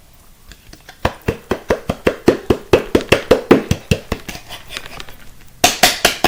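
Slime being squeezed and worked with the fingers: a fast, even run of sharp wet pops, about five a second, then a few louder, hissier squelches near the end.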